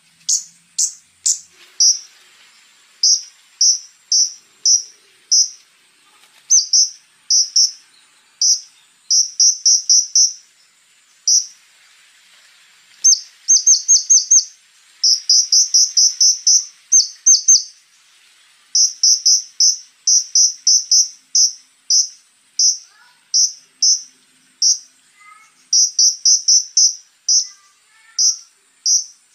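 Konin songbird giving sharp, high chirps in rapid runs of two to eight notes with short pauses between runs, over a faint steady high-pitched tone.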